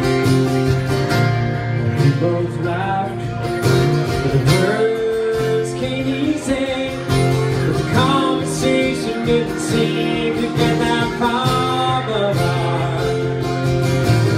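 Acoustic guitars playing the instrumental break of a country song: steady strummed chords under a lead melody that slides between notes several times.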